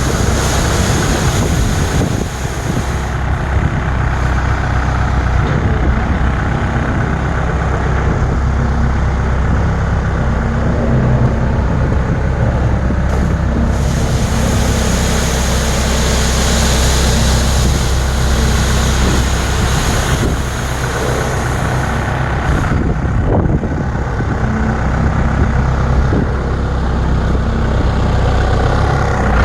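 Heavy diesel machine engine running steadily, with a continuous rough, hissing noise over it.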